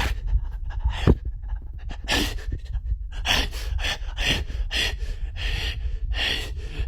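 A man panting heavily, out of breath, with quick loud breaths about two a second.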